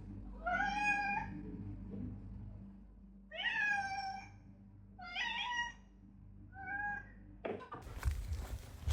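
A domestic cat meowing four times, with pauses between the calls. A loud burst of noise follows near the end.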